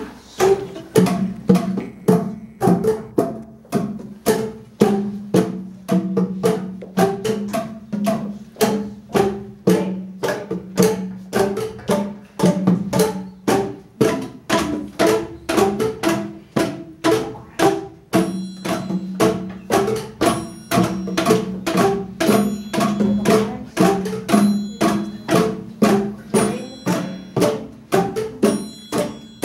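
Children's percussion ensemble playing a rhythmic piece: drums and tuned mallet percussion struck together in a steady beat of pitched notes.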